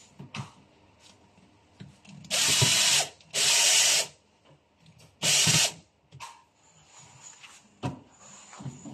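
Cordless drill driving a screw into the shoe cabinet's panel in three short bursts, the second right after the first and the third about a second later. A few light knocks follow near the end.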